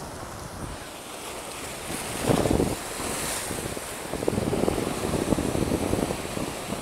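Sea waves washing against shoreline rocks, with wind buffeting the microphone; the noise swells louder for a moment a little over two seconds in.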